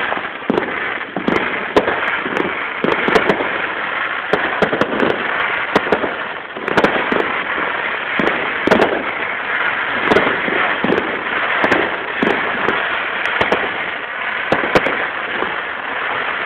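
Aerial fireworks going off: a dense, irregular run of sharp bangs and crackles, several a second, over a continuous rushing noise.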